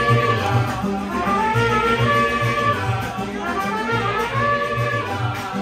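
Live mariachi band playing, with trumpets over a steady low bass beat.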